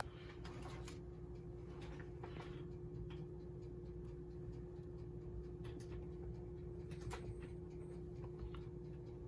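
Faint crackling and sizzling of ground-turkey patties cooking on a hot electric griddle, scattered small ticks over a steady low hum.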